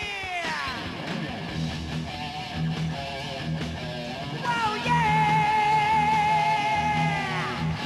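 Hard-rock band playing an electric guitar lead over bass and drums. A held guitar note dives down in pitch at the start, and about halfway through a bent note is held with slight vibrato before it drops away near the end.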